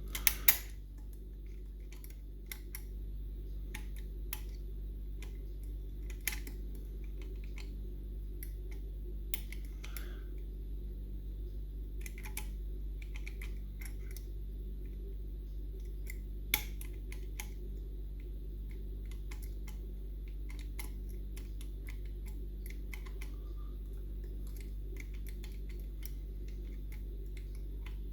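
Irregular small metallic clicks and taps of lock picks working inside a Union Strongbolt lever mortice lock, with a few sharper clicks near the start and about halfway through, over a steady low hum.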